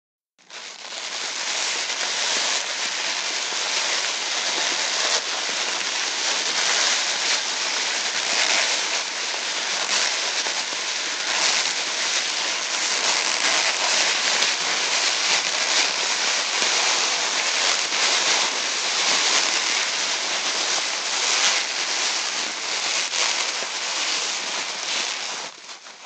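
Sea sound effect: a continuous wash of surf, a steady noise with small swells, starting about half a second in and cutting off near the end.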